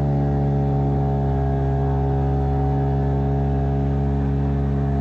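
Hangkai 6 hp two-stroke outboard motor running steadily at quarter throttle under way, during its break-in period.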